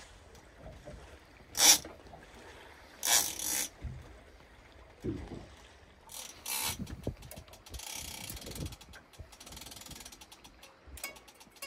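Fishing reel clicking and whirring in several short bursts, the reel working against a heavy flapper skate being played up off the bottom.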